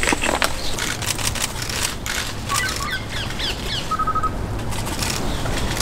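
Leaves and branches rustling with scattered clicks and knocks, with a quick run of short, high, falling chirps near the middle followed by a brief row of five even pips, over a steady low rumble.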